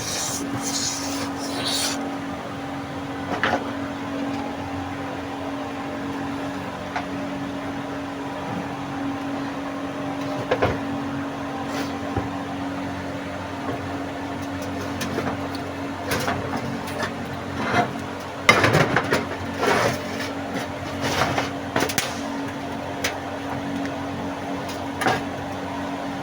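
A steady mechanical hum with scattered clicks and knocks, which come thickest about two-thirds of the way through.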